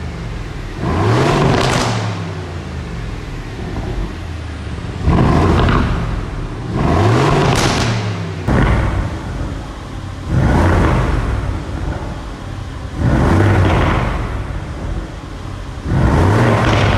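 Aston Martin engine revved again and again, about six times: each rev climbs in pitch and drops back to idle.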